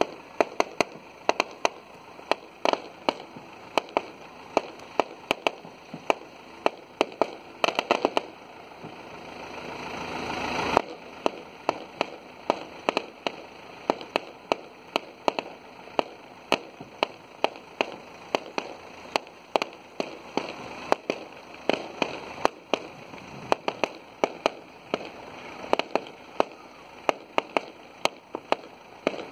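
Firecrackers going off in a long irregular string of sharp bangs, one to three a second. A hiss builds for about two seconds and cuts off suddenly about eleven seconds in.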